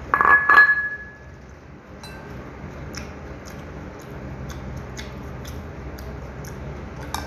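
A ceramic mug set down with a loud ringing clink right at the start, then faint small clicks of eating and handling food, and another light clink near the end.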